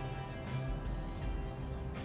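Music with held notes over a steady beat.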